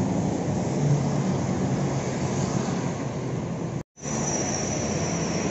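Steady road traffic noise from cars and motor scooters on a busy street. A brief moment of silence falls about four seconds in, and a thin high whine joins after it.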